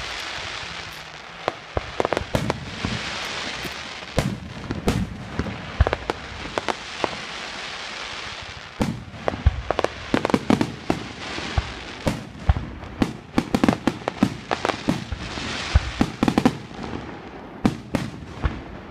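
Fireworks display: aerial shells bursting with many sharp bangs, coming thicker after the first few seconds, over a crackling hiss from glittering crackle stars.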